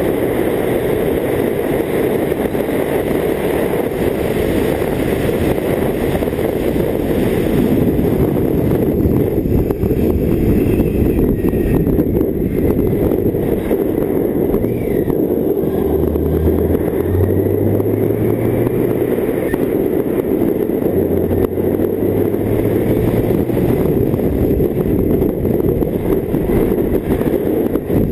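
BMW K1600GT on the move: a steady rush of wind and road noise with its inline-six engine running beneath, growing louder about eight seconds in, with brief low steady hums now and then in the second half.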